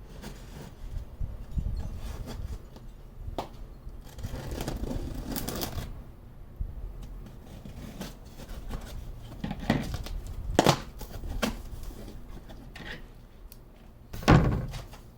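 Cardboard box being cut and opened by hand, with packaging rustling and tearing, scattered knocks and clicks, and a loud thud near the end.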